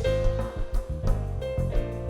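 Live band playing without vocals: keyboard chords held over a bass line that moves between notes.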